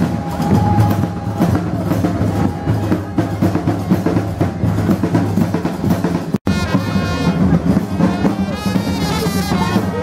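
Parade band playing in the street: drums beating a steady rhythm with loud wind instruments over them. The sound drops out for an instant about six seconds in, then carries on.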